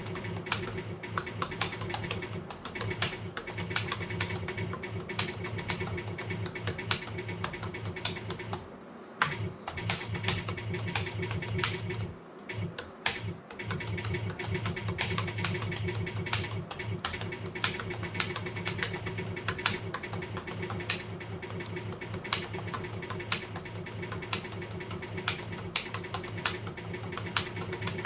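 Fast typing on a computer keyboard: a rapid, irregular run of key clicks with short pauses about nine and twelve seconds in, over a steady low hum.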